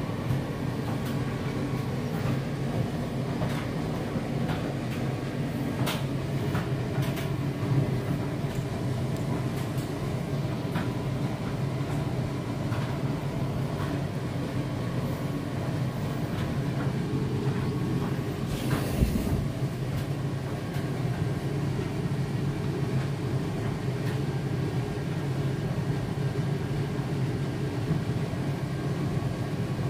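Front-loading laundry machine running, its drum turning the load with a steady motor hum. Light clicks and knocks come now and then, with one louder knock about 19 seconds in.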